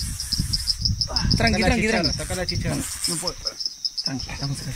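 Crickets chirping: a steady, fast-pulsing high trill, with low voices murmuring partway through.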